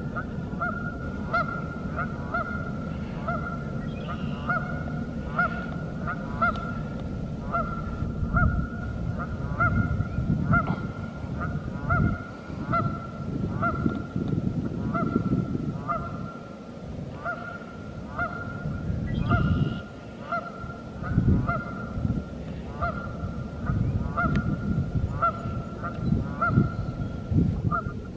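Flock of Canada geese honking continually, about one and a half honks a second, with irregular low rumbling underneath.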